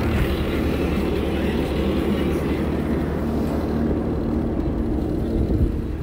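Bobcat T595 skid steer's diesel engine running steadily.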